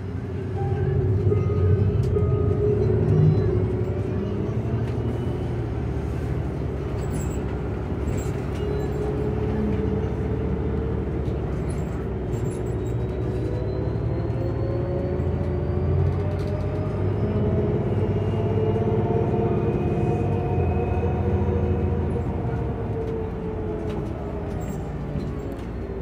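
Ride inside a New Flyer Xcelsior XDE40 diesel-electric hybrid bus under way: a steady low drivetrain rumble with a whine that rises in pitch as the bus gathers speed, and scattered light rattles.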